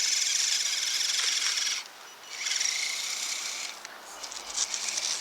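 Axial SCX10 RC crawler's electric motor and gears whining under throttle as it pushes wet snow with its plow. It comes in two bursts with a short pause about two seconds in, eases off, and picks up again near the end.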